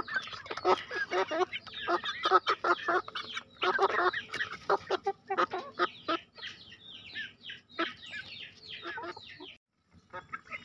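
Young Bangkok gamefowl clucking and calling as they peck grain from stone paving, with dense short calls and taps in the first half and a run of short falling calls later on. The sound cuts out briefly near the end.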